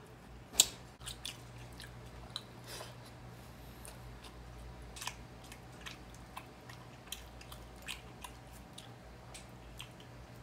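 Close-miked chewing and mouth smacks while eating garlic butter shrimp by hand, with scattered sharp clicks, the loudest about half a second in. A low steady hum runs underneath.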